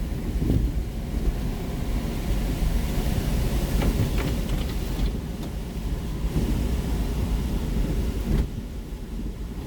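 Hurricane winds gusting, with a heavy low rumble of wind buffeting the microphone. The rushing swells a couple of seconds in and eases near the end.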